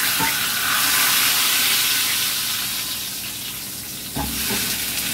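Hot oil tempering (tadka) of fried onion and spices poured into a bowl of cooked dal, setting off a loud sizzle that slowly dies down. A short knock about four seconds in.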